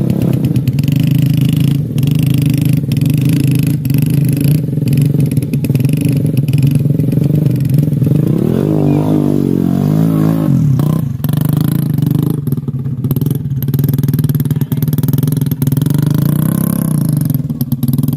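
Motorcycle engines running under load as sack-laden bikes are ridden and pushed through deep mud. The engine note climbs and falls about halfway through as a rider revs to drive out of the mud, with scattered clicks and knocks over the steady drone.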